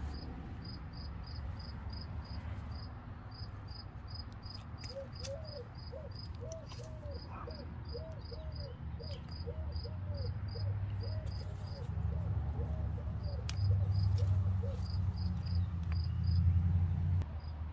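Insect chirping at a steady pace, about three high chirps a second, pausing briefly about two-thirds of the way through, over a low rumble.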